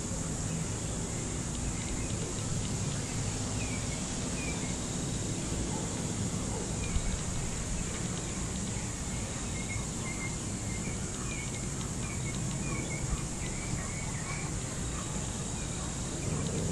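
Outdoor ambience: a steady high insect drone with faint, short bird chirps repeating through the middle, over a low steady rumble.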